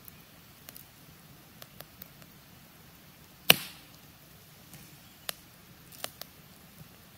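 Wood campfire crackling, with scattered sharp pops and one loud snap about halfway through.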